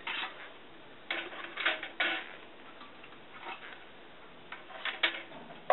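Light, irregular plastic clicks and taps from a slide carousel tray being handled, about eight in all, the sharpest near the end.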